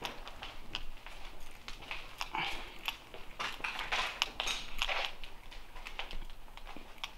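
Footsteps crunching and scraping over plaster rubble and debris on a concrete floor, an irregular run of crackling steps.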